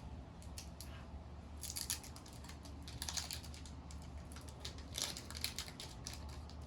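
Pokémon trading cards being handled, several short scratchy rustles and slides of card on card, in a few clusters.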